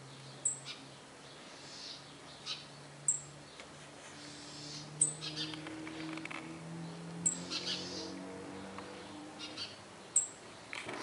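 A small bird calling: short, very high chirps repeated every two to three seconds, with softer twittering notes between them.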